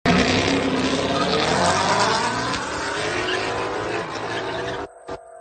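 A Ford Mustang doing a smoky burnout launch: the engine revs hard with its pitch climbing steadily over a dense roar of spinning, squealing rear tyres. The sound cuts off sharply near the end.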